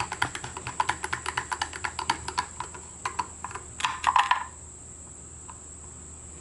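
Screwdriver tightening the centre bolt, with washer and lock washer, on the recoil starter of an Evinrude 3 hp outboard: a rapid run of ratchet-like clicks, about ten a second, for some three and a half seconds, then a short scraping burst about four seconds in.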